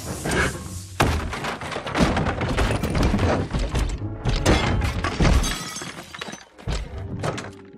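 Film sound effects of a giant robot smashing through a living room: a rapid run of heavy crashes, thuds, breaking and shattering that starts about a second in and eases off after about five and a half seconds, with a few more knocks near the end. Music plays underneath.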